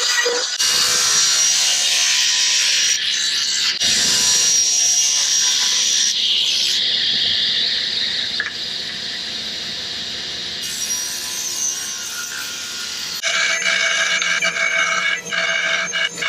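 Power tool working wood in a series of short cut-together clips, a loud, steady hiss-like running with abrupt changes every few seconds. Background music takes over about three-quarters of the way in.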